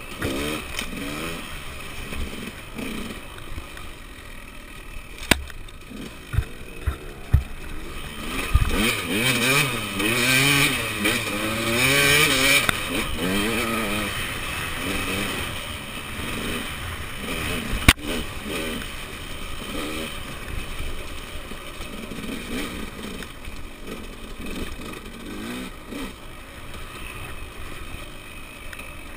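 Enduro dirt bike engine revving up and down as it is ridden over rough trail, its pitch rising and falling with the throttle, loudest about ten to thirteen seconds in, with a few sharp knocks along the way.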